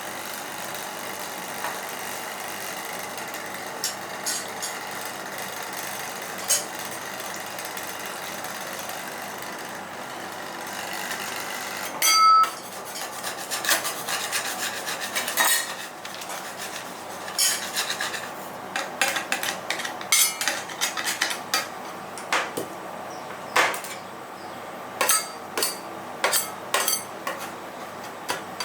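Metal spatulas tapping and scraping on the steel cold plate of an ice-roll machine, chopping the ice-cream mix, over a steady hum. The taps start about halfway in with one loud ringing clang, then come irregularly, one or two a second.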